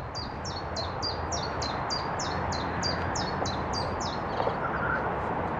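A small songbird singing a long series of high, quick down-slurred notes, about three a second, that stops about four seconds in. Beneath it runs a steady background rush.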